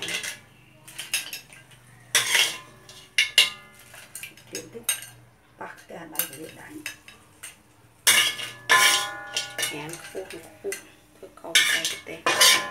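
A metal spoon scraping and clanking against a metal wok while fried crabs are scooped out, in several bursts. Some strikes leave the wok ringing, and the loudest bursts come late on and near the end.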